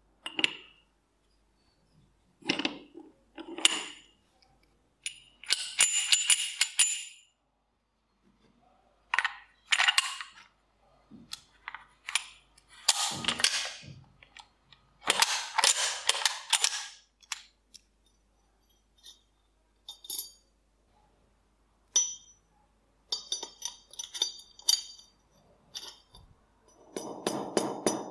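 Metal parts of an old nail gun's barrel assembly being slid together and handled: scraping slides and sharp metallic clicks in separate bursts of a second or two, some clinks ringing briefly. Near the end a fast run of taps starts over a steady ringing tone.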